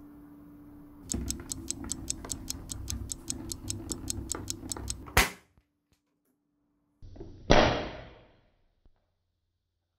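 Fast, even clock-like ticking, about five ticks a second for about four seconds, counting down to a sharp bang as the cardboard firecracker's party popper fires. About two seconds later comes a second loud burst of noise that fades over about a second.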